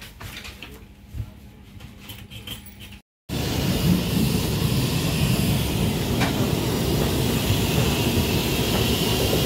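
A few seconds of quiet with light clicks, then, about three seconds in, a passenger train rolling out of the station: a steady, loud rumble of wheels on rail.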